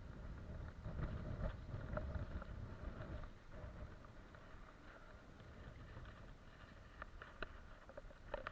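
Outdoor seaside ambience: an uneven low rumble of wind on the microphone, with a few light clicks near the end.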